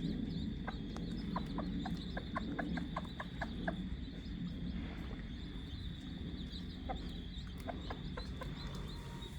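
Mother hen clucking in quick runs of short calls over her newly hatched chicks as they feed.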